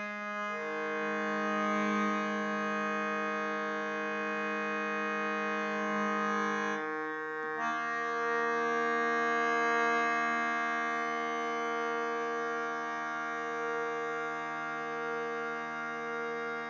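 Shruti box drone: the bellows-pumped reeds hold a steady chord of several notes. The chord shifts to different notes about half a second in and again at about seven and a half seconds.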